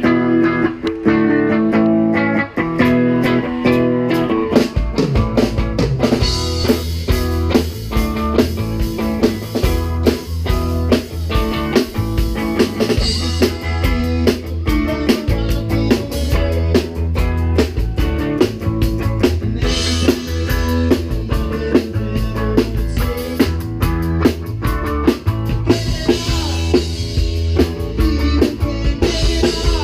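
Live rock band playing: an electric guitar plays alone at first, then the drums and the rest of the band come in about four seconds in, with a steady beat from there on.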